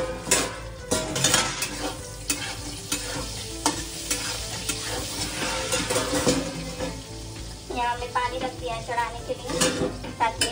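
A metal spoon stirring and scraping food sizzling in a hot pan, with frequent sharp clicks of the spoon against the pan.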